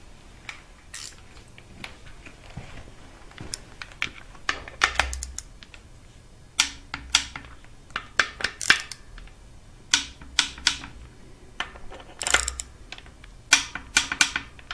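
Ratchet of a torque wrench clicking in short runs, with light metallic taps, as timing-belt idler pulley bolts are tightened to torque.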